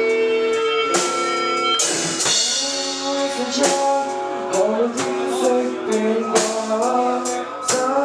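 Live band playing a slow rock song: electric guitars holding chords over a drum kit keeping a steady beat, with a voice singing through the second half.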